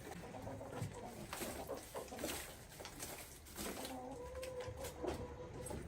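Farm bird calls, with one long, steady call starting about two-thirds of the way in.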